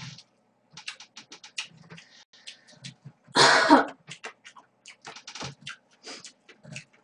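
Close-miked eating sounds: wet chewing and lip smacks in a run of short clicks, with one loud half-second slurp of cold noodles about three and a half seconds in.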